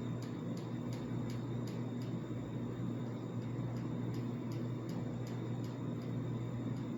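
A regular light ticking, about three ticks a second, over a steady low hum.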